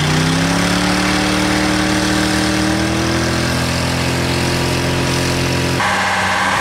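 SUV engine held at high revs in a burnout, its wheels spinning while it is perched on top of a sedan. The engine note rises slightly over the first few seconds and then holds steady, and the sound changes abruptly near the end.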